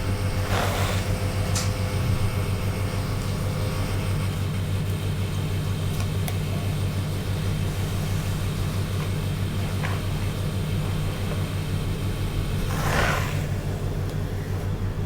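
Steady low hum throughout, with a brief soft swish about half a second in and a stronger one near the end.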